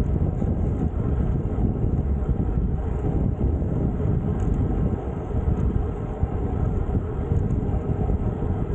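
Steady wind rush on the camera microphone while riding a road bike at speed, heaviest at the low end, with no breaks or distinct events.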